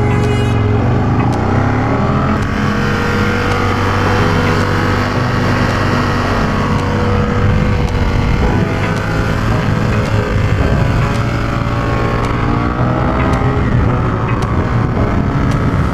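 Aprilia Tuono 1000R's V-twin engine heard onboard while riding, its revs rising and falling repeatedly through the bends.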